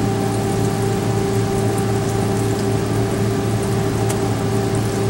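Steady mechanical drone of a directional drilling rig's engine and fluid pump running under load while pipe is pulled back, with a constant crackling hiss over it.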